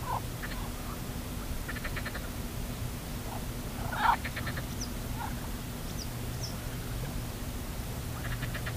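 Scattered animal calls over a steady low hum: several short rattling call series, the loudest about four seconds in, with a few faint high chirps.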